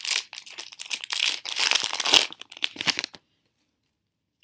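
A 2013 Topps Mini trading-card pack wrapper being torn open and crinkled by hand, a dense crackling rustle that stops abruptly about three seconds in.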